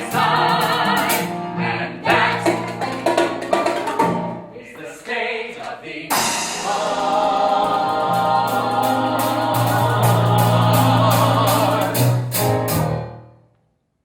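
Musical-theatre song sung by several voices over rhythmic accompaniment. It eases off briefly, then builds into a long held final chord that fades out near the end.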